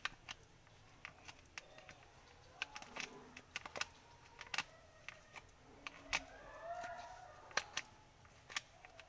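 Irregular sharp clicks and taps of small hard parts being handled, with a faint wavering tone about six seconds in.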